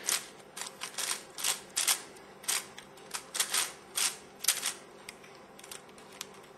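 Plastic layers of a Crazy 3x3 Venus twisty-puzzle cube clacking as they are turned quickly, over and over, in a down-down-up-up sequence. There are about a dozen sharp clacks, thinning out about five seconds in.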